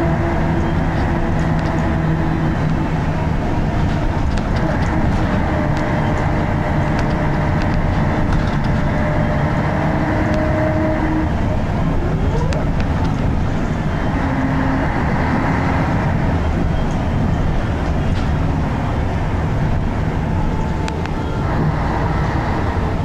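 Scania K113CRB bus's 11-litre six-cylinder diesel engine running hard, heard from inside the passenger saloon, with a loud, coarse thrash. The engine note changes pitch a couple of times around the middle as the ZF automatic gearbox shifts.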